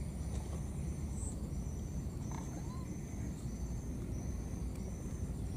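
Insects chirping: a steady high whine with short high-pitched notes repeating about every two-thirds of a second, over a steady low rumble of background noise.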